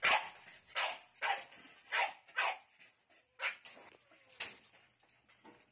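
A dog barking in about seven short, sharp barks at uneven intervals, dying away near the end.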